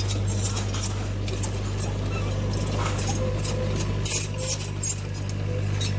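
Radio-controlled HUINA toy dump truck's small electric motor and plastic gearbox running with a steady low hum, with scattered clicks and rattles from its mechanism and a sharper click about four seconds in.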